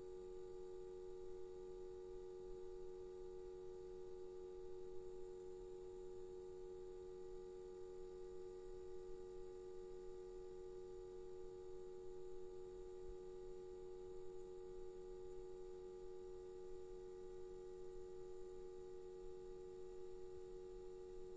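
Electric lamp buzzing with mains electricity: a steady, unchanging hum made of several pitches at once.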